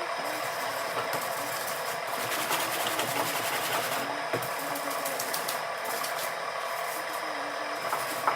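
Continuous steady sanding of body filler over a fiberglass repair on a car's front lip.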